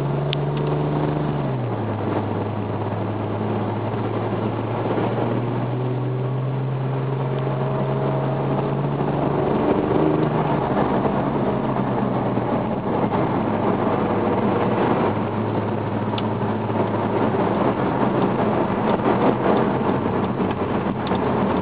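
Porsche 911 Turbo engine heard from inside the cabin while driving: a steady low drone that steps down in pitch about a second and a half in. Tyre and road noise grow more prominent in the second half.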